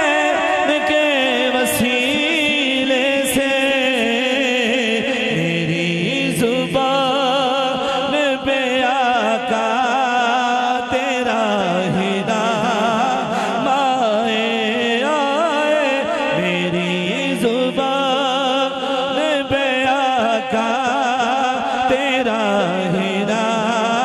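A man singing an Islamic devotional naat, drawing out long wavering melismatic notes with heavy vibrato and no clear words. A steady low drone sits under the voice from about five seconds in and again from about sixteen seconds in.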